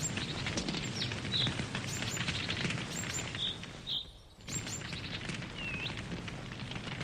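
Campfire crackling with many small pops over a steady hiss, while a bird chirps in short calls several times. The sound drops out briefly about four seconds in.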